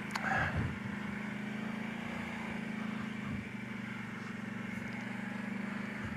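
Kawasaki Brute Force 750 ATV's V-twin engine running steadily at a low, even speed on the trail, with a brief louder noise about half a second in.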